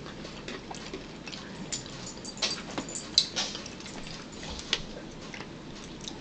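Eating sounds: chewing with wet mouth noises, and a utensil clicking and scraping in a plastic bowl, the sharpest click about three seconds in.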